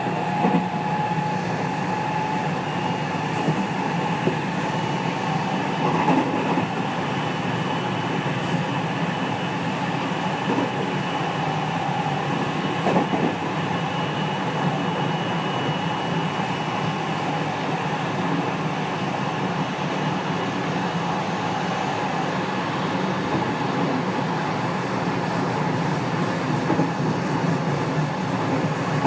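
JR West 207 series 1000 subseries electric train heard from inside the motor car, running at a steady pace. An even rolling noise carries a few steady tones, with an occasional click of the wheels over the rails.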